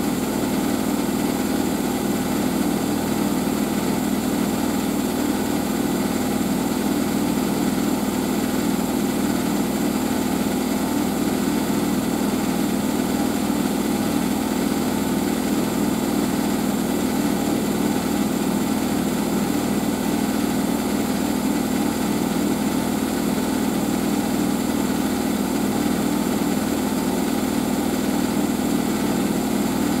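Siemens Siwamat IQ 716 front-loading washing machine running with a steady, unchanging hum in the last minutes of its programme.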